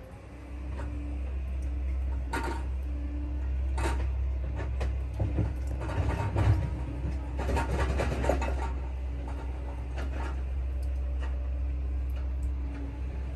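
Tractor engine running steadily, heard as a low rumble. Rustling and light knocks sound over it, busiest about six to eight seconds in.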